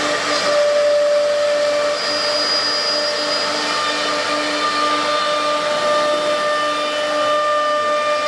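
Automatic panel-feeding CNC router running: a steady rush of noise under a held, layered motor whine, with a brief higher whine joining a couple of seconds in.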